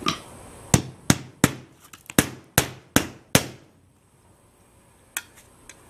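Hammer blows on metal step flashing, seven sharp strikes in quick succession about 0.4 s apart, nailing the flashing down beside a skylight, then a single lighter tap near the end.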